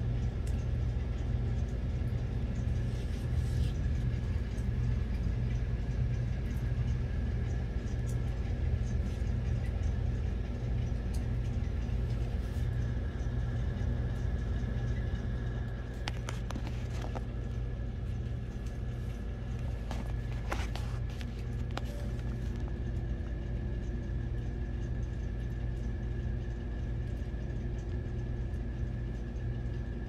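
Steady low machine hum, with a faint thin high tone held over it. A few short clicks a little past the middle, and the hum drops slightly in level about halfway through.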